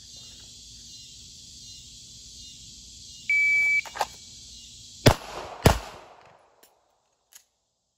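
A shot timer's start beep sounds once, then about a second and a half later an Arex Delta M Gen 2 9mm pistol fires two shots about half a second apart: the opening pair of a F.A.S.T. drill. A steady insect chorus runs underneath until the shots.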